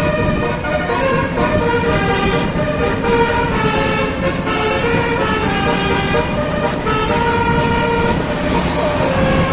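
A bus's telolet 'basuri' multi-tone musical horn playing a tune. Several notes sound together and step from pitch to pitch every half second or so, over steady road and engine noise.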